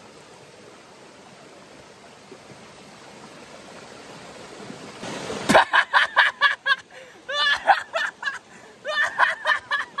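Steady rush of a mountain stream and small waterfall. About halfway in, a man breaks into loud, hard laughter, several quick 'ha' sounds a second, in three runs.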